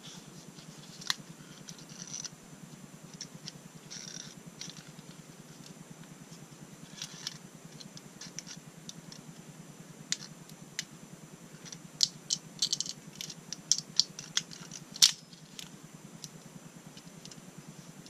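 Scattered small metal clicks and clacks as a Benelli SuperNova shotgun's trigger assembly is handled and its bolt stop latch is tried, growing denser in the second half with the sharpest click about three seconds before the end. A steady low hum runs underneath.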